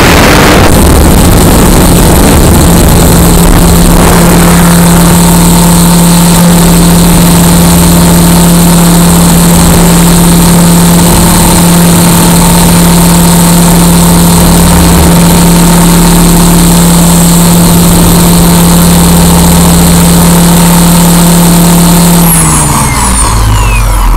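XLPower 520 electric RC helicopter's motor and rotor, heard from a camera mounted on the frame: a loud, distorted steady hum and whine at flight speed. Near the end the pitch falls as the motor and rotor wind down after touching down.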